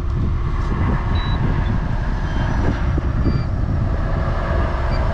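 Heavy truck's diesel engine rumbling low and steady as it drives onto the weighbridge, with a few short high electronic beeps.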